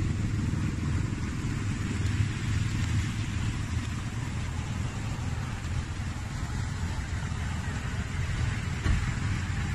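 A car running, heard as a steady low rumble with a faint hiss above it.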